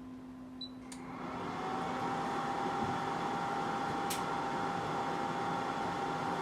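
BGA rework station starting its heating cycle: a short beep, then about a second in its hot-air blower and fans start up, rising within a second or so to a steady blowing hum with a constant whining tone. A single click about four seconds in.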